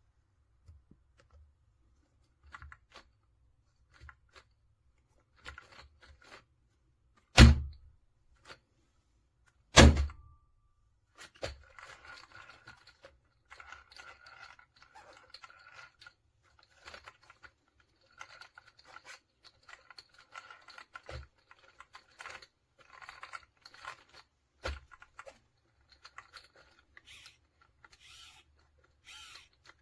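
Objects being handled in a small room: scattered light clicks, two loud thumps, then a long stretch of crinkling and rustling like packaging being handled.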